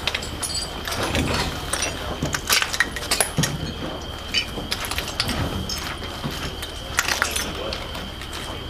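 Irregular clicks, clinks and rattles of soldiers' gear and rifles knocking as they climb through a window frame, over a faint steady high whine.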